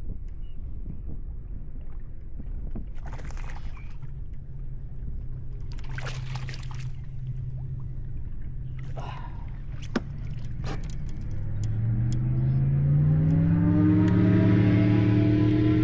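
A motor's low hum with a few splashes and two sharp knocks, then the motor rises steadily in pitch and grows louder over the last few seconds.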